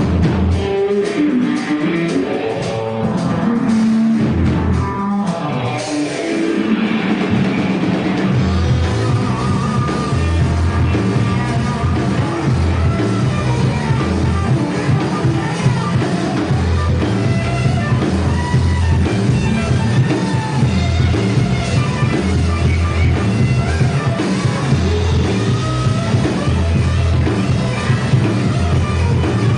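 Rock band playing live: electric guitars, bass and drum kit, with a singer on the microphone. About six seconds in the full band comes in heavier, with a steady pulsing bass line.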